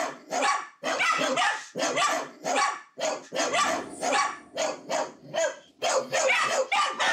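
Several small dogs barking nonstop at a visitor at the front door, sharp barks coming about twice a second without a break.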